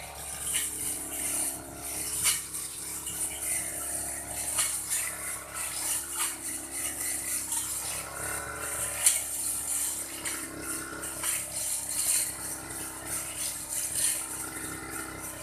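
Old grass-cutting machine running steadily while cutting grass, with frequent sharp ticks and rattles as the cutter strikes the grass.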